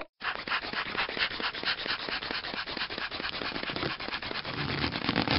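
Dense, irregular crackling and rustling made of many small clicks, growing a little louder near the end.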